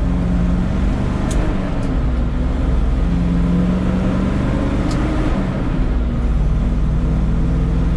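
Loud farm grain truck engine pulling while the truck is driven up through the gears of its 10-speed (5 speeds with high and low range) transmission; the engine note drops away and comes back a few times as it shifts. A few short clicks are heard over it.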